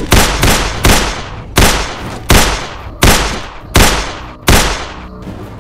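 A handgun firing a string of about eight shots: the first three in quick succession, then the rest about three-quarters of a second apart, each bang ringing out briefly before the next.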